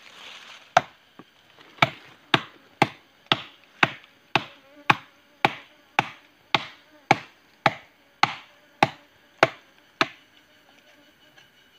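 Parang (machete) hacking into a felled agarwood log by hand, sharp chopping strokes at about two a second that stop about ten seconds in.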